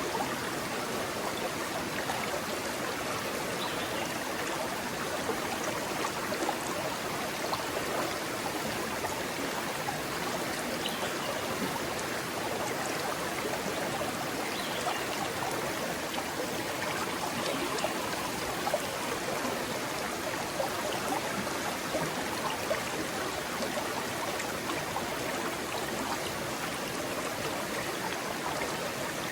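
A rocky stream running over stones: a steady rush of water with small splashes and gurgles.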